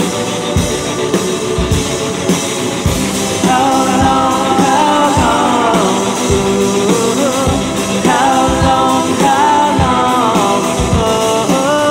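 Rock band playing live, a drum kit keeping a steady beat; a voice starts singing about three and a half seconds in.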